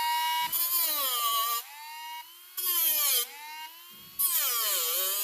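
Dremel rotary tool running at a high whine, then grinding off the protruding metal staple wires three times: each time the pitch dips as the tool bites in and recovers, with a harsh grinding hiss.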